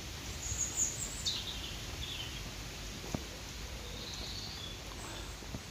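Outdoor ambience: small birds chirping a few times, short high calls, over a low steady rumble, with one sharp click about three seconds in.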